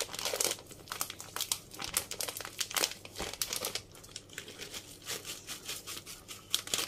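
Plastic bag of shredded cheese crinkling and rustling in irregular crackles as it is handled and shaken out over the dish.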